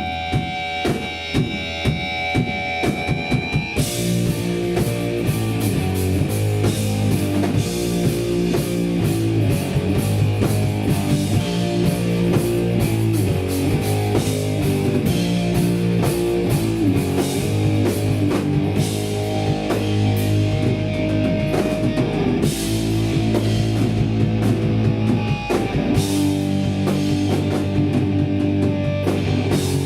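Live hardcore punk band playing: a sparse opening of held guitar notes and separate drum hits, then the full band crashes in about four seconds in with distorted guitars, bass and fast, dense drumming.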